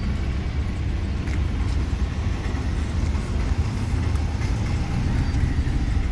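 Car moving slowly along a street, heard from inside the cabin with a rear window open: a steady low rumble of engine and road noise.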